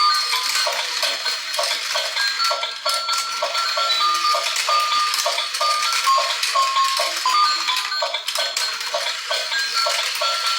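Battery-powered toy dinosaur park playing its electronic tune through a small speaker: a tinny beeping melody over a steady pulse of about three beats a second, with bleat-like animal sound effects mixed in.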